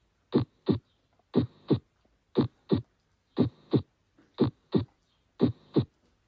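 Heartbeat sounds: six steady lub-dub pairs, about one pair a second, with the second beat of each pair following about a third of a second after the first.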